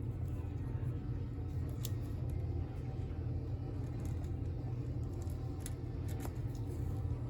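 Steady low hum with a few faint, sharp clicks, typical of hands working the toy parrot's plastic shell and snap clips.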